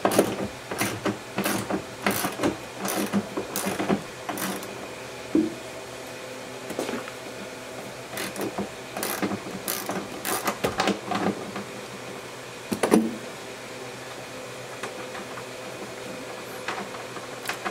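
Hand ratchet with a deep-well socket turning off a seat-mounting nut: a series of ratcheting clicks, a little under two a second, that pause about five seconds in, resume for a few seconds, then stop.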